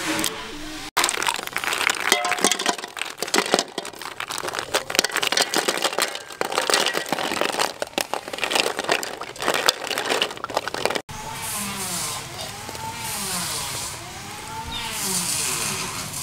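A dense run of clicks and clatter: the shells of live snails knocking together as a hand stirs and sorts them in a metal pot of water. In the last few seconds the clatter gives way to a steadier background with a faint, wavering tone that repeats about once a second.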